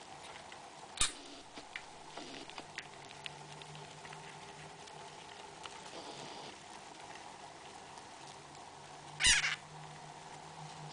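Scattered soft ticks and rustles of hamster pups moving in wood-shaving bedding, with a brief rustling burst about a second in and a louder, longer one a little after nine seconds in.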